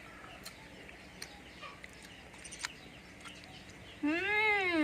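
A single drawn-out animal call about four seconds in, rising and then falling in pitch over roughly a second and a half, after a stretch of low background with small clicks.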